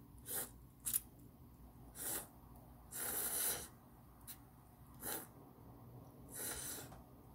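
A person slurping ramen noodles from chopsticks: about seven short slurps, the longest about three seconds in.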